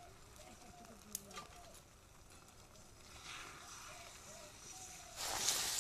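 A few metal clinks of a steel plate and spatula against a metal wok, then, near the end, beaten egg starts sizzling loudly in hot oil as it is stirred. Faint wavering calls sound in the background.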